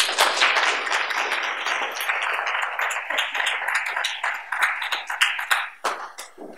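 Audience applauding: many hands clapping at once, dying away near the end.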